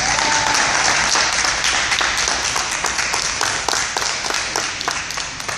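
Audience applauding: clapping breaks out suddenly and slowly tapers off.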